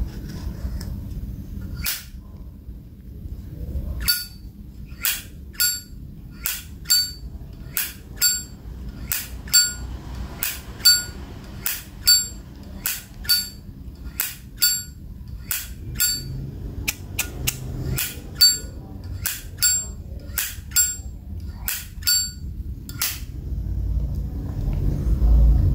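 Brass Zippo lighter's hinged lid being flicked open and snapped shut over and over, each stroke a sharp metallic click with a short ringing tail, roughly two clicks a second for most of the stretch.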